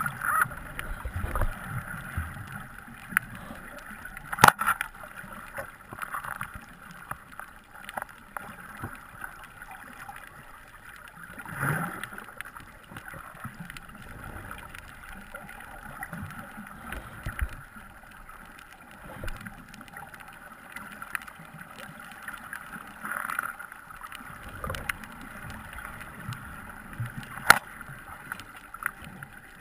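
Underwater ambience picked up by a camera in its waterproof housing: a steady, muffled water noise with low rumbles, broken by a few sharp clicks, one about four and a half seconds in and another near the end.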